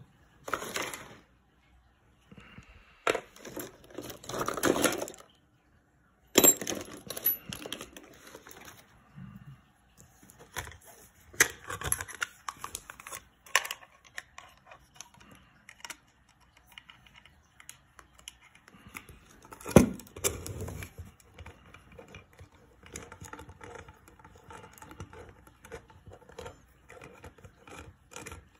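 Hand handling of a stepper motor and a thin sheet-metal mounting plate being fitted together: irregular clicks, light metallic rattles, scrapes and rustles of paper and metal, with a sharp knock about twenty seconds in.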